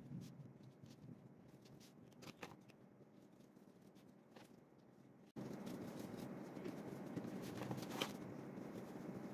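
Faint scratching of coloured pencil and pen strokes on paper, with hands sliding over the sheet and scattered light taps. About halfway through the background hiss steps up suddenly and stays louder.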